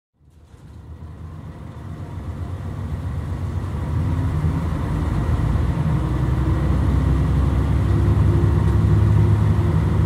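JR Shikoku 2000-series diesel express train running, a steady low rumble of engines and wheels that grows louder over the first four seconds or so and then holds.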